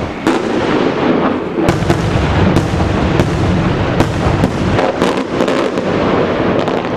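Aerial firework shells bursting overhead: a string of sharp bangs, coming closer together in the second half, over a continuous rumble and crackle.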